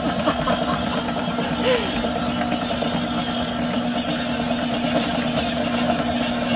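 Electric stand mixer running at a steady speed with a constant motor hum, its beater turning through banana bread batter as flour and baking powder are mixed in.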